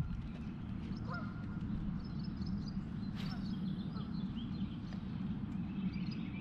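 Birds calling outdoors: a short pitched call about a second in and scattered faint high chirps, over a steady low rumble, with a single sharp tap about three seconds in.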